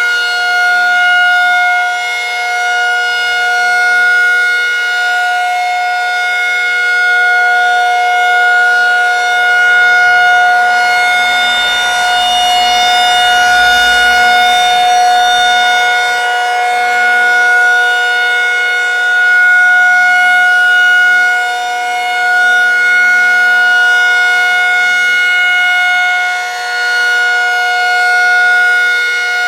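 Federal Signal 2001-SRNB rotating outdoor warning siren sounding the alert signal: one steady tone that holds its pitch and swells and fades gently as the rotating horn turns.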